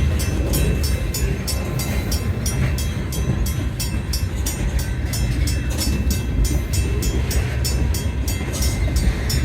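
CN freight train rolling past with a steady, heavy low rumble.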